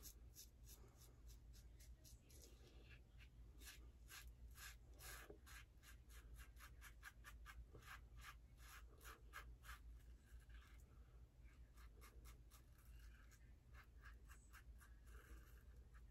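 Faint scraping of a UACowboy 3D-printed double-edge safety razor, fitted with a new Voskhod blade, cutting through lathered stubble. It comes in runs of short, quick strokes, several a second.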